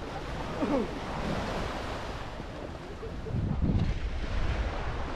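Wind buffeting the microphone over the rush of sea water, swelling louder for about a second just past the middle.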